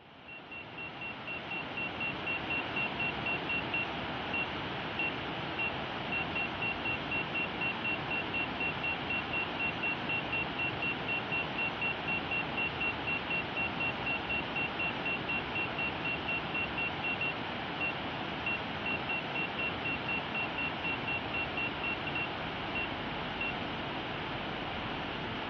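Drone flight app's obstacle-proximity warning: a short high beep repeating rapidly, several times a second, that turns sparse and broken in the last few seconds. Underneath is a steady rushing noise.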